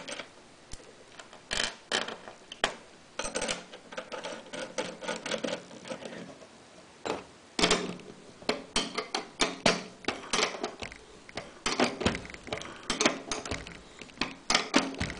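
Ratchet wrench clicking in short bursts of quick ticks, with metal clinks between, as a bolt is tightened to draw a well nut out through the sheet-metal bottom of a tool cabinet.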